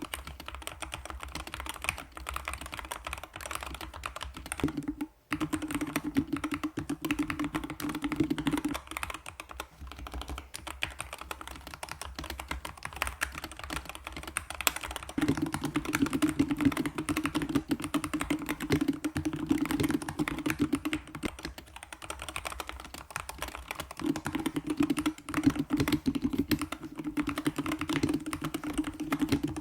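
Fast, continuous typing on a Corsair K70 Max keyboard with magnetic switches, fully lubricated and sound-dampened. The keys give dense, muted clacks, with a brief pause about five seconds in.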